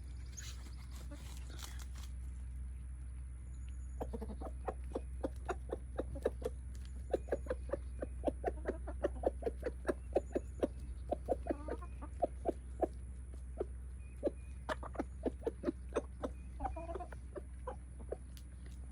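Chickens clucking as they feed on kitchen scraps: many short clucks in quick runs, starting about four seconds in, over a steady low hum.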